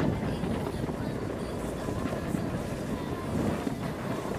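Wind rushing on the microphone over the low rumble of a Begode Master V4 electric unicycle riding along a dirt trail, with a faint steady whine in the second half.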